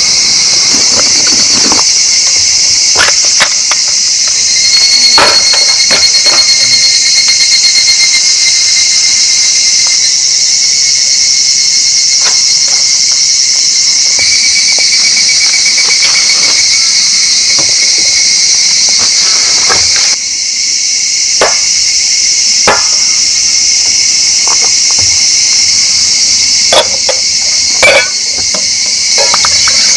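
Dense, steady high-pitched chorus of insects chirring, with a few short knocks and taps scattered through it.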